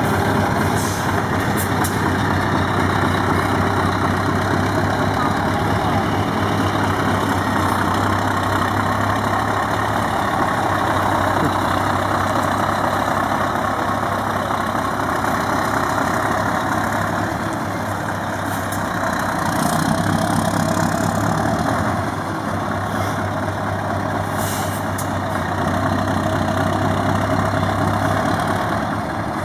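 Scania R500's V8 diesel engine running steadily at low speed as the truck manoeuvres, a deep continuous engine note. Brief faint hisses about a second in and again later.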